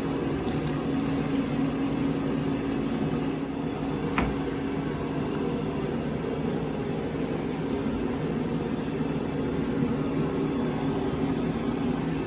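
Steady machine hum with a few constant low tones, unchanged throughout, and a single sharp click about four seconds in.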